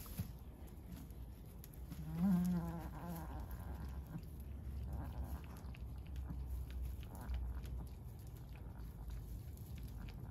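A goat gives one short, wavering bleat about two seconds in, with a couple of fainter calls later. Between them come light clicks and rustling as a doe goat nibbles at her own flank in the straw.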